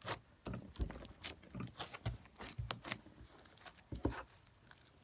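Teal fishbowl slime (clear slime with plastic fishbowl beads) being kneaded and pressed by hand: an irregular run of sticky squishes and crackling pops that dies away near the end.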